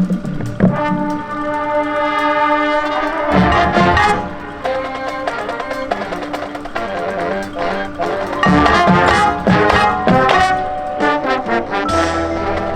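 High school marching band playing: brass chords held over drum and mallet percussion strikes, with the held chord breaking into moving notes a little over three seconds in.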